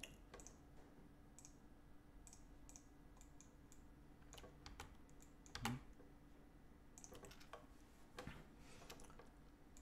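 Faint, irregular clicks and taps of a computer keyboard and mouse, with a louder click about halfway through and a few quick clicks near the end, over a low steady hum.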